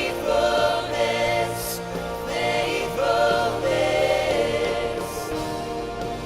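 Choir singing a worship song in held, sustained notes over instrumental accompaniment.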